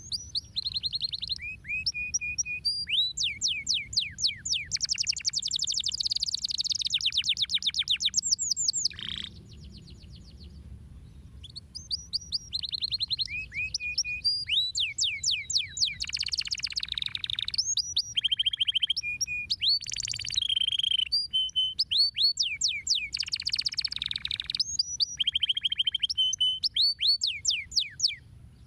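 Domestic canary singing a long song of rapid trills and fast, repeated down-sweeping notes. It pauses for about three seconds around nine seconds in, then goes on.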